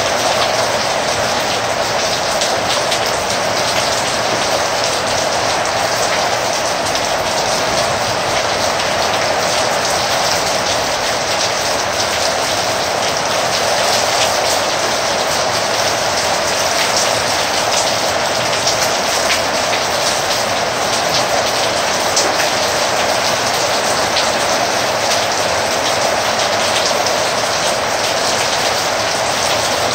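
Heavy rain falling steadily, a dense even hiss with many fine drop ticks.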